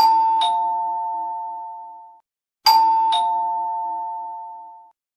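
Ding-dong doorbell chime rung twice. Each time a higher note sounds, then a lower note about half a second later, and both ring on and fade away over about two seconds.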